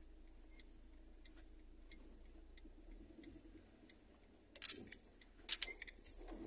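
Quiet car cabin with a soft, regular ticking about every 0.7 s. Two loud bursts of sharp rattling clicks come near the end, about a second apart.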